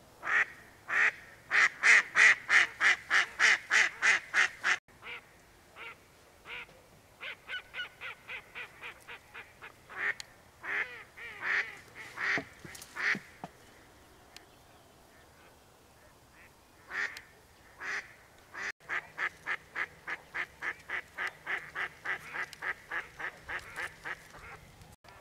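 Duck quacking in long, rapid runs of about three quacks a second, loudest in the first few seconds, with a gap in the middle; the last run fades toward the end.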